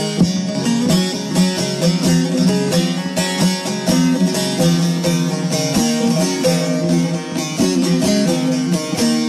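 Instrumental Turkish folk music, led by quickly plucked string instruments playing a melodic passage without singing.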